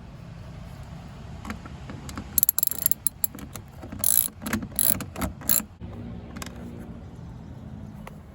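A hand ratchet clicking in short spells as a T30 Torx screw is backed out, with louder sharp bursts about four to five and a half seconds in, over a low steady hum.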